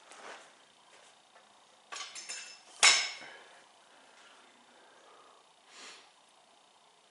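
A few light metallic clicks, then one sharp metallic clank that rings briefly, a little under three seconds in.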